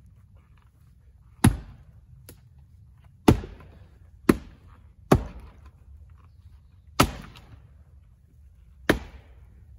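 Axes splitting firewood rounds: six sharp, loud strikes into wood at uneven intervals as two people chop in turn.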